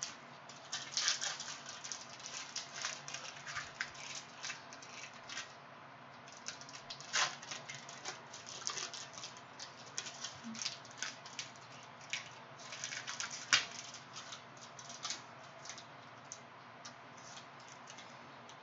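Cellophane wrapper of a Prizm trading-card cello pack crinkling as it is torn open and handled, in irregular clusters of sharp crackles, with cards being handled. The crackles thin out over the last few seconds.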